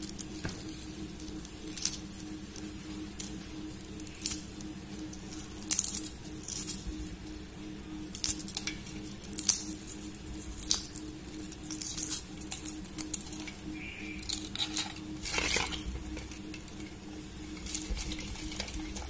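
Hard-boiled eggs being cracked and peeled by hand over an aluminium bowl: irregular small crackles and clicks of breaking shell, with now and then a light knock against the bowl, over a steady low hum.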